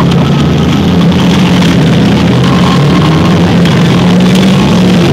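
Engines of several four-cylinder demolition derby cars running together, a loud steady drone.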